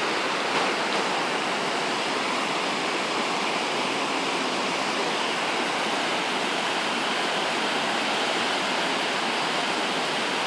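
River in flood rushing past in turbulent white water, a steady, even noise of churning water.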